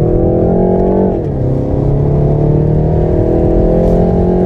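BMW 330i's turbocharged 2.0-litre four-cylinder engine pulling under acceleration, heard from inside the cabin. The revs climb, drop sharply with an upshift about a second in, then climb steadily again.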